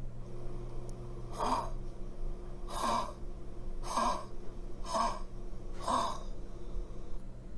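A dog's honking 'goose' cough: five short, harsh honks about a second apart. It is a dry cough, which the vet puts down to a narrowed trachea or bronchi.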